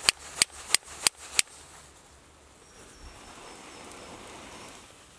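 Flint and steel: a steel striker hit against a piece of quartz five times in quick succession, about three sharp scrapes a second, throwing sparks onto the tinder. Then a soft, steady rush of breath as the ember is blown into flame in a dry-grass tinder nest.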